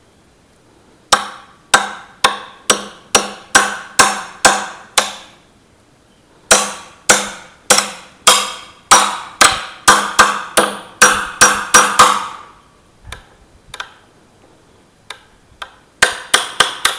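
A hammer striking the end of a Mokuba steel claw bar, driving its flat slotted blade under a wooden trim strip to get beneath a nail and start lifting it. The blows come as sharp, ringing strikes at about two to three a second, in a run starting about a second in and a longer run after a short pause, with a few lighter taps and another quick run near the end.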